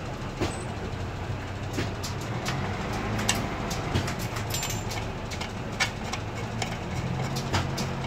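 Scattered light clicks and taps of threaded brass rods and spring-loaded bolts being handled and set into the metal mounting plate of an adjustable sink base, over a steady low hum.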